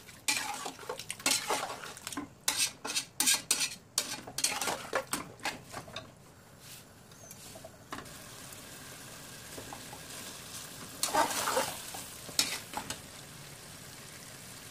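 Metal spatula scraping and stirring pieces of mutton in a pressure cooker pan as the meat and masala are fried down with curd. Quick scraping strokes run for about the first six seconds and come back briefly later, with a faint steady sizzle in between.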